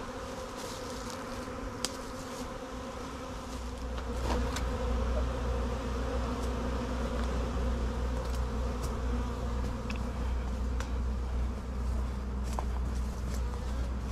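A swarm of honeybees buzzing steadily in and around a hive box as the swarm settles and moves inside; the hum grows louder about four seconds in.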